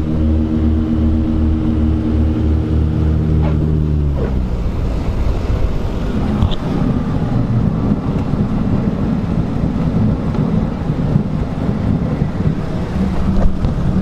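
Small propeller plane heard from inside the cockpit: a steady engine drone that drops in pitch about four seconds in as power comes off, then a rough rumbling noise as it rolls along the runway.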